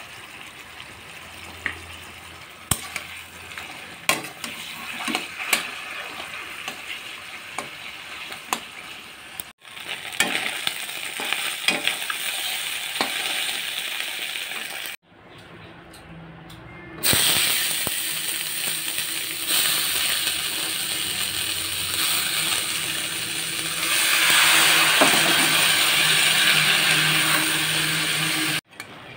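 Fish-head pieces frying in hot oil in a metal kadai, sizzling, with a steel spatula clicking and scraping on the pan as they are stirred. Later, grated ash gourd sizzles in the pan, louder, and the sound breaks off briefly a few times.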